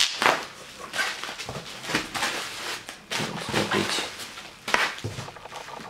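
Bubble-wrapped packages crinkling and rustling as they are handled and lifted out of a cardboard box, with irregular crackles and light knocks against the cardboard.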